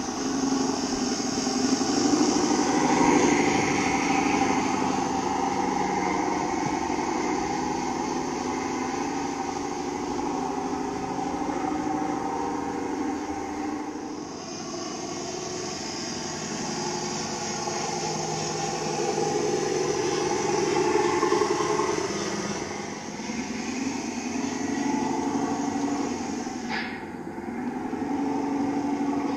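Scale RC Scania truck's engine sound module playing a simulated diesel engine, the note rising and falling as the model drives.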